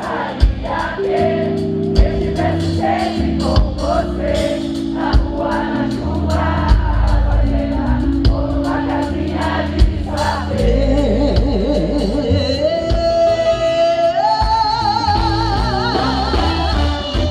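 Live band playing Brazilian soul, with drums, bass and singing. About ten seconds in the drum hits stop and a woman's voice holds a long note with vibrato, stepping up in pitch several times.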